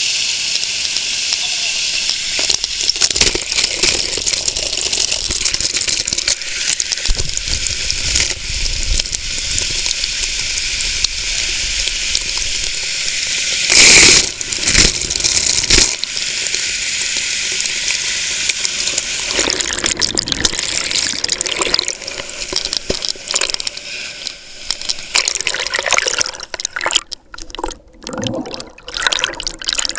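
White water pouring over a river weir, a steady loud rush and splashing heard right at the water surface. About 14 s in there is a brief, much louder surge as water hits the camera, and near the end the sound breaks up, cutting in and out and muffled as the camera dips under and surfaces.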